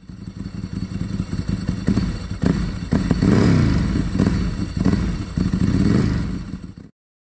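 Motorcycle engine revving up and down a few times, with a few sharp knocks between revs; it cuts off suddenly shortly before the end.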